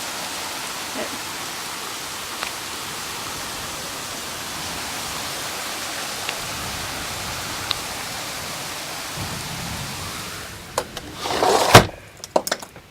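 Heavy rain pouring down in a steady hiss. Near the end the rain sound drops away and a quick series of knocks and clatters follows, one much louder than the rest.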